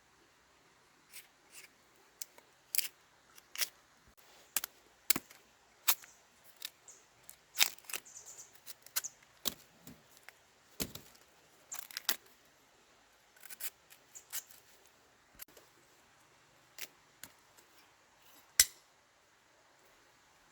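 A series of irregular sharp clicks and snaps, sometimes several close together, with pauses between them; one sharp snap near the end is the loudest.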